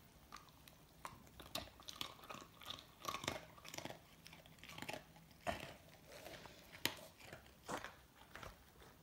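Border collie chewing and crunching crumbly pieces of birthday cake: a run of faint, irregular crunches and bites.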